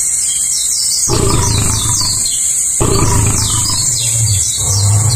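Deep growling roars from lionesses attacking a Cape buffalo, three long ones: about a second in, near three seconds, and just before the end. Under them runs a steady high-pitched drone with repeated falling chirps.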